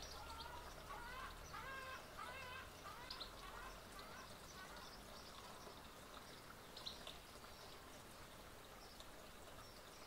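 Faint outdoor bird calls: a run of lower wavering calls in the first few seconds, then scattered short high chirps over a quiet background hiss.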